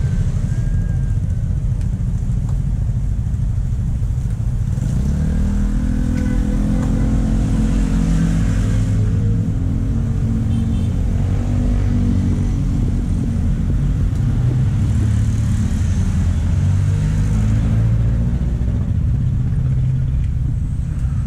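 Road traffic: passing car and motorcycle engines over a steady low rumble, the engine sound rising from about five seconds in and again later.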